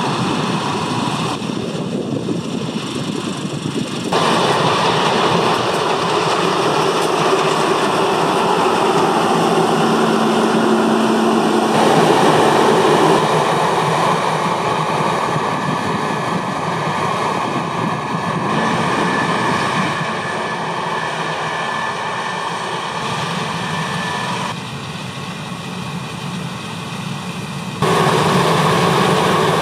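New Holland CR 8.90 Revelation combine harvester running in wheat: a steady, loud machinery noise of engine and threshing. The level and tone jump abruptly several times.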